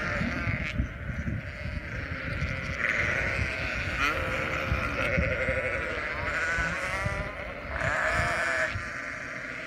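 A large flock of sheep bleating, with many baas overlapping one after another throughout.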